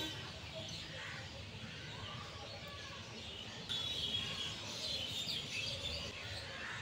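Small birds chirping over a steady background of outdoor noise, the chirps coming thicker and louder from about four seconds in.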